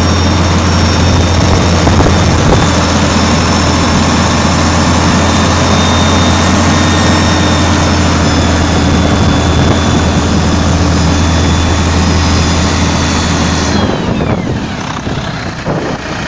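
Volvo D13A 12.8-litre inline-six turbodiesel truck engine running steadily after start-up, a deep drone with a thin high whine over it. About 14 seconds in the engine note falls away and the whine slides down in pitch over a second or so, and the sound gets quieter.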